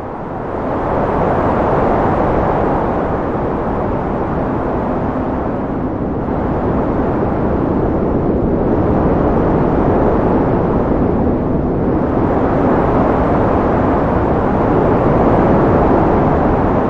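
Desert wind blowing hard and steadily, swelling and easing every few seconds, with a faint low steady whistle coming in partway through.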